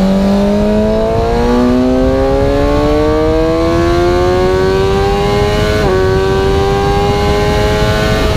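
Suzuki GSX-R750 inline-four engine accelerating hard, its pitch climbing steadily, with a brief dip about six seconds in as it shifts up a gear, then pulling on more slowly, over heavy wind rush.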